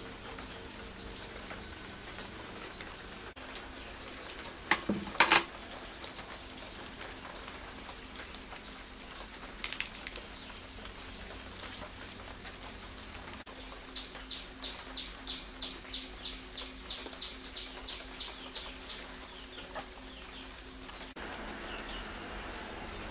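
A bird calling a quick run of about sixteen short, high, repeated notes, roughly three a second, over faint steady chirping. Near the start come a few sharp knocks, the loudest sounds, and a smaller one about ten seconds in.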